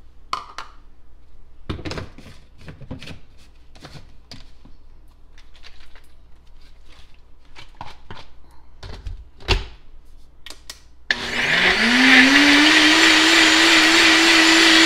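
Scattered light knocks and clicks as the NutriBullet Rx blender cup is handled and fitted onto the base. About eleven seconds in, the blender motor starts, its whine climbing quickly to a steady pitch, and runs loud and even as it blends a thin liquid dressing.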